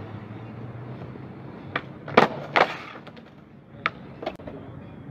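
Skateboard wheels rolling on concrete, then a kickflip attempt: two loud sharp slaps of the board about two seconds in, followed by a few lighter clacks of the board on the concrete as the trick fails.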